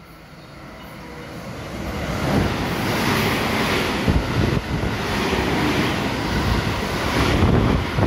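JR West 223 series electric train passing through the station at speed without stopping: the rush of wheels on rail grows over the first two seconds as it approaches, then stays loud as the cars go by, with a few sharp knocks from the wheels. The wind the passing train drives against the microphone adds buffeting.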